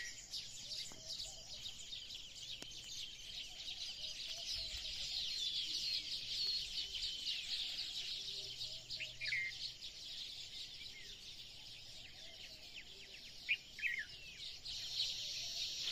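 A chorus of many birds chirping and twittering together, a dense layer of short high calls, with a few louder single calls standing out around the middle and near the end.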